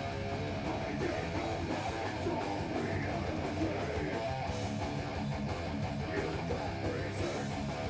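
A heavy metal band playing live, with electric guitar and bass guitar.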